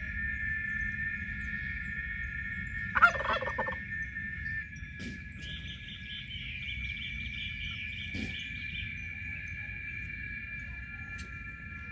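Domestic turkey tom gobbling once, a short rattling call about three seconds in, over a steady high-pitched drone.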